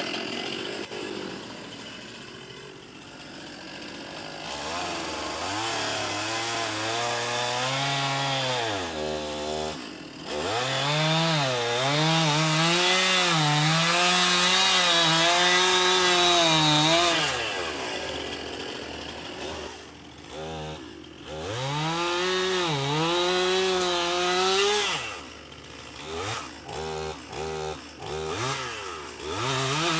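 Gas chainsaw cutting into a tree trunk during the final back cut of a felling. The engine revs up and drops in pitch over and over as it bogs under load in the cut, with several short throttle releases near the end.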